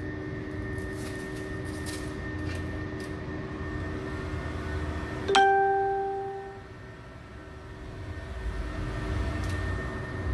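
Handheld electric heat gun blowing steadily, its fan whining with a low hum. About five seconds in, one sharp metallic clink rings on for over a second, the loudest sound.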